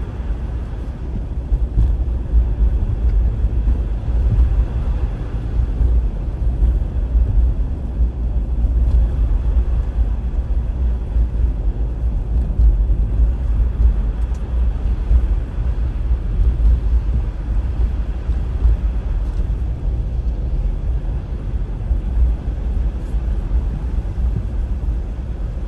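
A car driving on a snowy road: a steady low rumble of engine and tyre noise.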